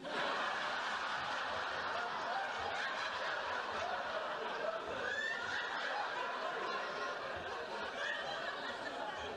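Studio audience laughing: a long crowd laugh that breaks out suddenly and holds steady, easing off slightly near the end.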